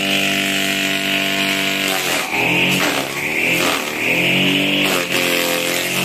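Homemade grass chopper driven by a Sanyo water-pump electric motor, running with a steady whine; its pitch sags several times as bunches of grass are fed into the cutter, then climbs back up.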